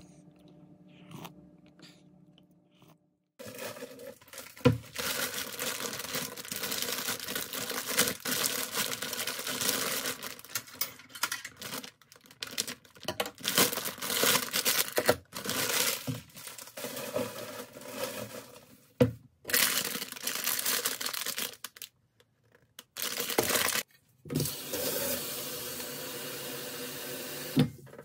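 Plastic noodle packaging crinkling and tearing in sharp, irregular rustles as a bag of Nongshim buckwheat soba dry noodles is handled and opened. Near the end, water runs into a pot at the sink with a steady hiss.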